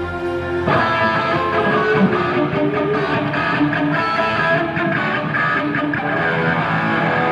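Electric guitar played loud through an amplifier, a run of sustained notes and chords, with a strong new phrase striking just under a second in.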